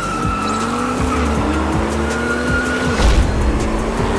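Racing-game sound effects: race car engines revving with rising pitch and tyres squealing, over music with a deep bass line. A heavy thump comes about three seconds in.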